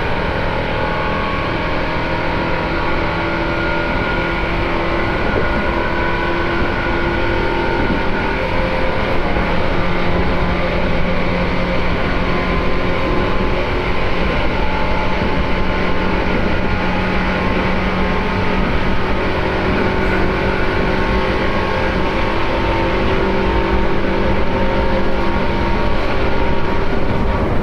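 Tobu 9000 series commuter train (set 9105F) running along the line: steady rolling rumble with several held whining tones from the traction motors and gears, growing slightly louder as it goes. The set is known for an abnormal running noise.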